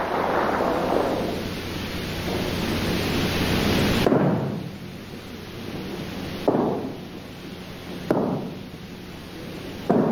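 Dense rumbling noise, then a series of sudden heavy thuds about every two seconds, each dying away.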